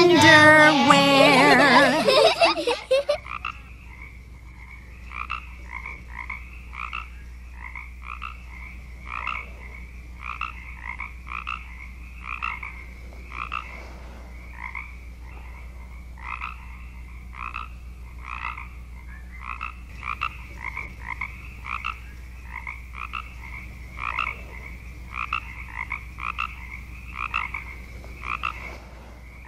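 Frogs croaking: a long series of short, repeated calls at about one or two a second. A children's song plays during the first three seconds, then cuts off.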